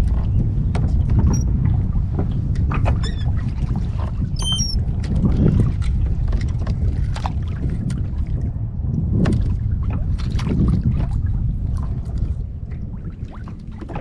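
Steady low rumble of a fishing kayak under way on open water, with scattered small clicks and a few short high chirps about three and four and a half seconds in.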